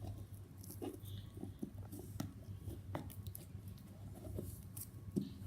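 Slime being squished and kneaded by hand, making irregular sticky clicks and small squelching pops.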